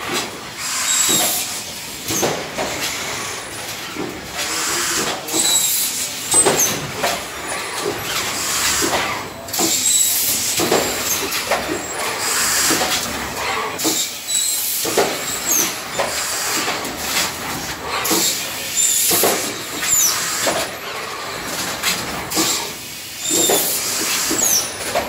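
Automated thermoforming and robotic palletizing line running: repeated hisses of compressed air and mechanical clatter every second or two, with a few short high squeals.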